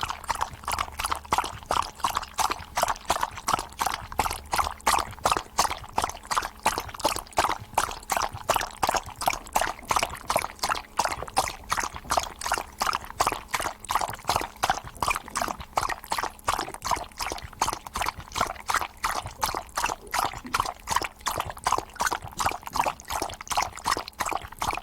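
A dog lapping water with its tongue in quick, even laps, about three to four a second, keeping up a steady rhythm throughout.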